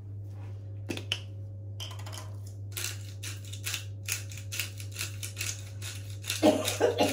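Hand-twisted salt grinder grinding over a bowl in quick crunching clicks, the salt coming out poorly. A few louder knocks near the end.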